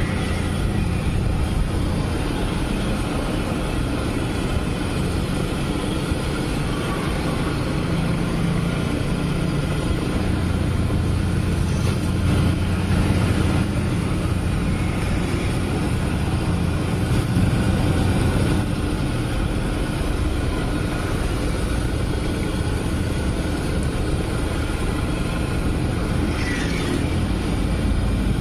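Batter-coated tofu deep-frying in a huge wok of oil, sizzling and bubbling steadily over a continuous low rumble of road traffic and engines.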